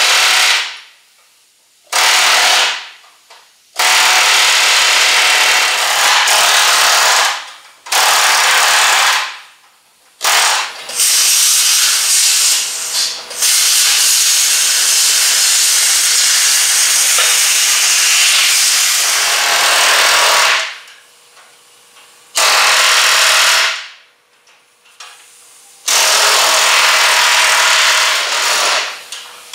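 A metal-cutting power tool cutting through the steel core support of a wrecked Mustang GT in repeated bursts with a loud hiss. The bursts run from about one second up to about ten seconds, and stop abruptly between cuts.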